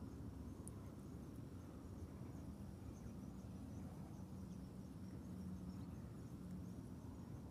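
Quiet outdoor ambience by open water: a low rumble like wind on the microphone, with faint high chirps repeating steadily. A faint low hum comes in for a few seconds in the middle.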